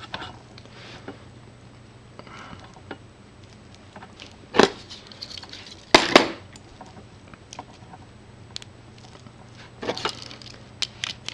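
Small clicks and rattles of a plastic RJ45 plug and Cat5 cable being handled as the wires and jacket are pushed into the plug, with two sharper knocks about four and a half and six seconds in and a run of quick clicks near the end.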